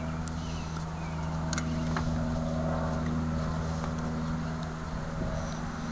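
A steady low mechanical hum, with a few faint ticks about a second and a half to two seconds in.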